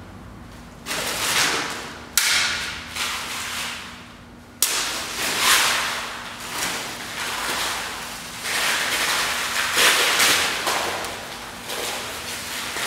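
A plastic bag swung hard through the air again and again, each swing a loud crackling rush of plastic, several starting with a sharp snap and coming faster in the second half.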